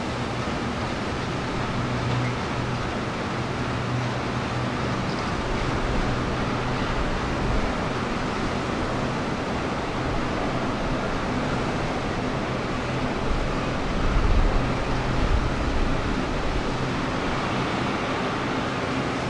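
Diesel locomotive engines running at a steady pitch: a low, even hum under a steady rushing noise. A deeper rumble swells briefly about fourteen seconds in.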